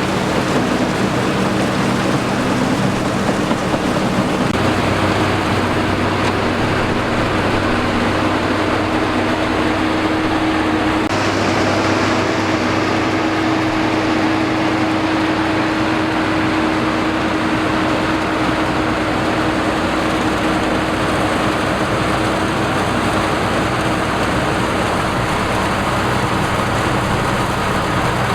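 Engine of a rice-harvesting machine running steadily at working speed, loud and continuous, with a slight shift in its pitch about four seconds in.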